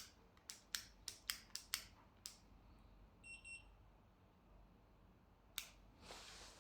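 Momentary push-button power switch on a Gosmilo X7 one-wheel board, clicked about eight times in quick succession over two seconds, then a short double electronic beep, then one more click.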